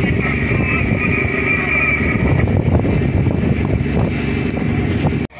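Fishing boat's engine running steadily. It cuts off suddenly near the end.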